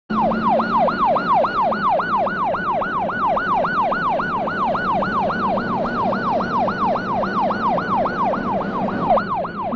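Ambulance siren in a fast yelp, each cycle sweeping quickly up and sliding back down, about three times a second, over a steady low hum.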